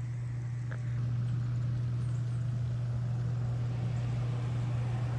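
Steady low mechanical hum from a running motor or engine, unchanging throughout, with a faint click just under a second in.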